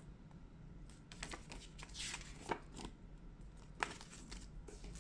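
Faint rustling of a folded paper user-manual leaflet as it is handled and folded, with two sharper paper clicks around the middle.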